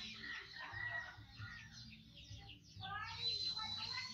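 Birds chirping and calling in quick short notes, chickens among them, with a faint low hum underneath.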